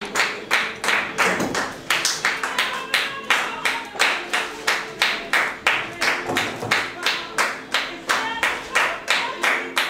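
Several people clapping flamenco-style palmas in a steady rhythm, about three claps a second.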